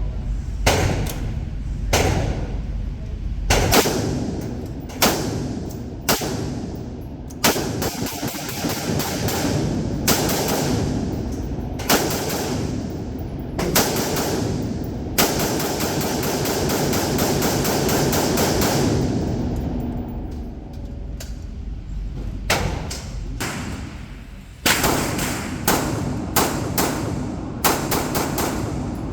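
Gunshots on an indoor shooting range: single shots and quick strings of two or three, fired at irregular intervals, with echo off the range walls.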